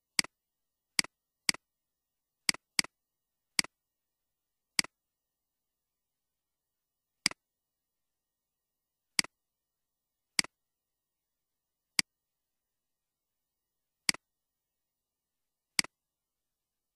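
Computer mouse clicks, about thirteen single sharp clicks spaced irregularly, a few close together as in a quick double click, with dead silence between them.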